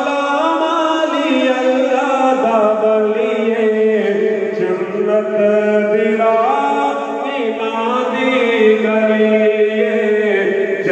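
A male voice singing a slow devotional chant through a sound system, with long held notes that slide between pitches and no drumbeat.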